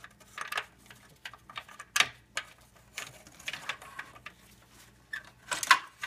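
Hand-handling noise of the hood latch's wiring lead and plastic connector being worked through the metal latch opening: scattered scrapes and clicks, the sharpest about two seconds in and just before the end.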